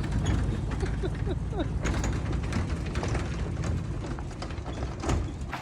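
Truck creeping slowly along a dirt road, its engine running low and steady under rattling and clicking, with a few short squeaks in the first two seconds.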